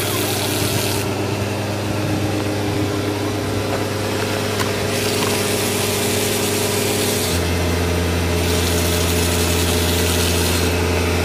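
An engine idling steadily, its pitch dropping slightly and settling about seven seconds in.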